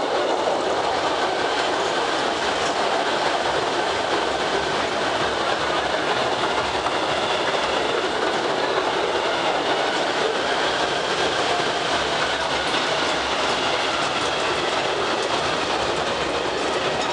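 Postojna Cave's open mini-train running steadily along its track through the cave tunnel, heard from aboard a carriage.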